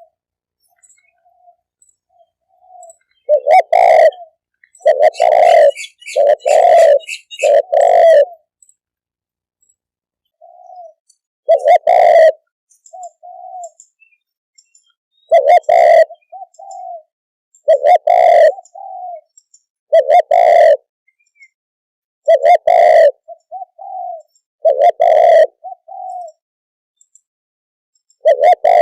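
Spotted dove cooing: loud, deep coos, first a run of four about a second apart a few seconds in, then single coos every two to three seconds with shorter, softer notes between them.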